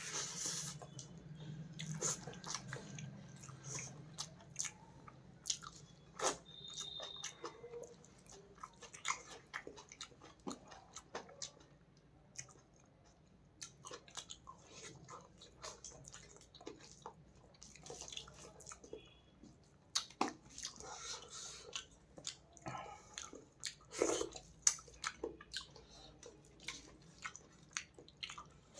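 Close-miked eating sounds: wet chewing, lip smacks and small clicks from mouthfuls of fish and rice, irregular and quick.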